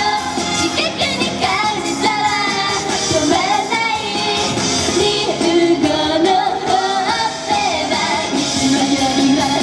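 Japanese idol pop song performed live: young female vocals singing a melody over upbeat backing music.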